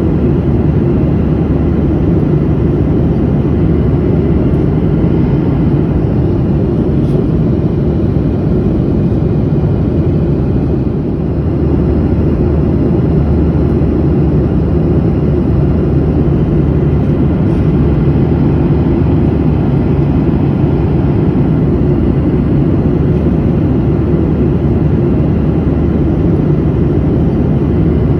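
Steady cabin noise of a passenger airplane in flight: engine and airflow noise heard from inside the cabin, a constant low rumble that barely changes.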